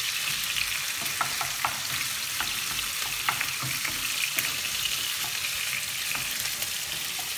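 Crumbled sausage sizzling in oil in a frying pan, stirred with a wooden spoon that scrapes and taps the pan in scattered light clicks over a steady hiss.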